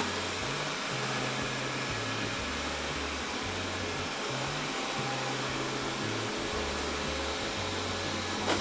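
Robot vacuum cleaners running, with a steady whir from their suction fans. A short sharp click comes near the end.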